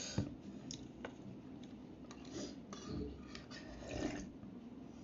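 Eating noises: short clicks of a fork against a plastic bowl, mixed with slurping and mouth sounds, and a longer sip near the end as broth is drunk straight from the bowl.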